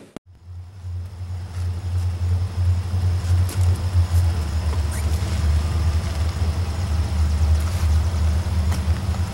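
A low, steady engine rumble that starts just after the opening moment and holds even.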